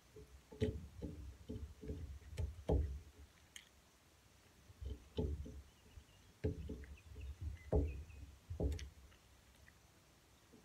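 Eating by hand at a glass table: irregular soft knocks and thuds with a few sharp clicks, in three spells of a couple of seconds each.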